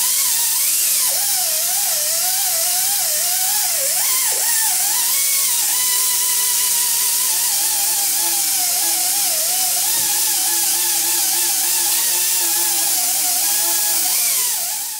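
Air-powered polisher spinning a buffing pad loaded with polishing compound against stainless steel sheet: a hissing whine whose pitch wavers up and down as the load on the pad changes, with a steady low hum underneath. It stops abruptly at the very end.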